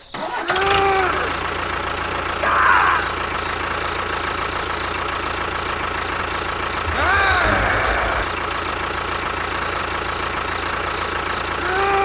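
A steady engine-like running, with a low pulsing rumble about seven seconds in, and four short voice-like calls that rise and fall in pitch.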